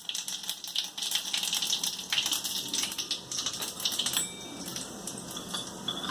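Cumin seeds crackling in hot oil: a dense run of quick, sharp pops that thins out about four seconds in.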